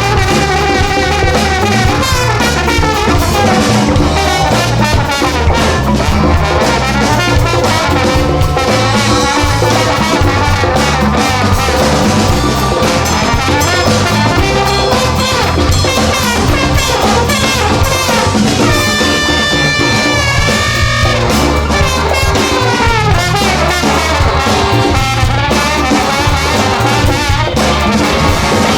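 A live band with a horn section and drum kit playing an up-tempo instrumental tune, loud and continuous; about two-thirds of the way through, a high note is held for a couple of seconds.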